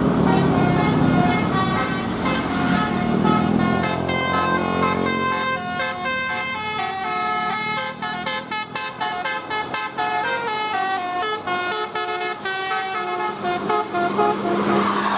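Bus 'telolet' multi-tone horn of the Basuri kind playing a tune of stepped notes, which speed up into rapid short toots midway. Vehicle engine and road noise are heavy in the first few seconds.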